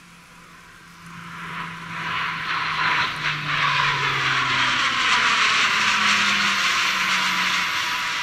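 Turboprop engines of a Lockheed C-130J Super Hercules on a low display pass: four Rolls-Royce AE 2100 turboprops and six-blade propellers. The sound swells over a couple of seconds into a loud, steady propeller drone. Its low hum drops in pitch as the aircraft passes overhead.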